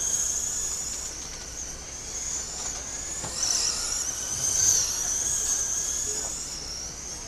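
Radio-controlled race cars running laps: a high, wavering motor whine that rises and falls in pitch as the cars speed up and slow down, swelling as they pass.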